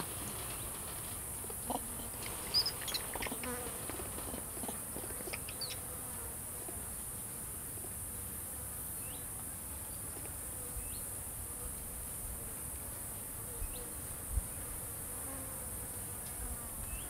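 Steady, high-pitched buzzing drone of insects, with a few short chirps and clicks about two to four seconds in.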